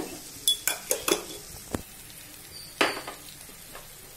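Chicken frying with a faint sizzle in a stainless steel pressure cooker, with about five sharp clinks and knocks of metal utensils against the pot, the loudest near three seconds in.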